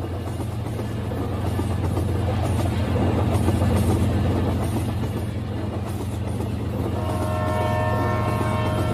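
Battery-powered toy trains running on plastic track: a steady motor drone with the rattle of the wheels and cars. Near the end a held, multi-pitched electronic tone starts.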